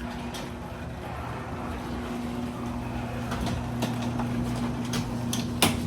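LiftMaster belt-drive garage door opener running, opening the door: a steady motor hum with light clicks and rattles from the door rolling up its tracks, and a sharp click near the end.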